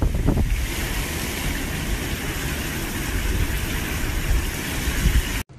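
Hurricane rain and wind: a steady rush of heavy rain with a low rumble of wind buffeting the phone's microphone. It cuts off suddenly just before the end.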